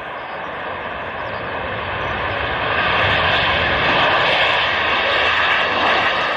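Jet aircraft engines running, a dense rushing roar that swells over the first three seconds and then holds loud and steady.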